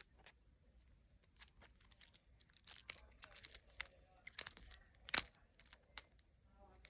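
Infinity cube fidget toy being flipped and folded in the hands: a run of irregular sharp clicks and clacks, loudest a little after five seconds in.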